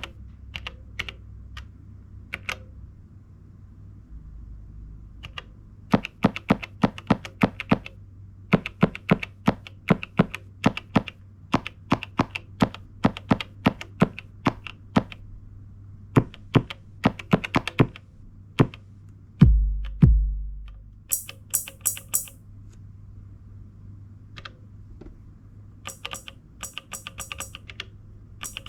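Elektron Digitakt drum machine playing short, clicky percussion hits in quick runs, about three to four a second, broken by gaps. Two deep kick-drum thumps come about twenty seconds in, followed by crisp hi-hat-like ticks.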